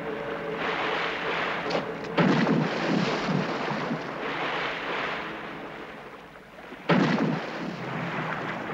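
Sea water splashing and churning as a gray whale moves at the surface beside a boat, with two sudden loud rushes of water, one about two seconds in and one near the end.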